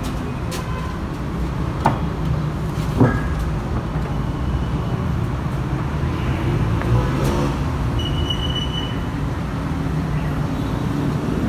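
Steady low rumble of road traffic, with two sharp knocks about two and three seconds in and a short high tone near eight seconds.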